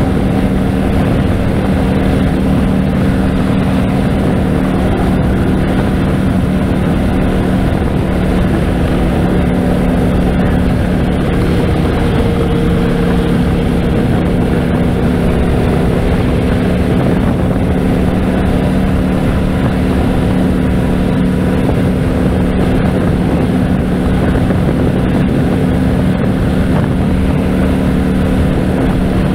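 Harley-Davidson Road King's V-twin engine running steadily at highway cruising speed, mixed with wind rush.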